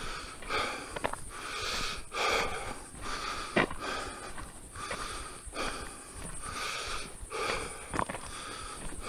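A hiker breathing hard, with a steady rhythm of breaths in and out about once a second.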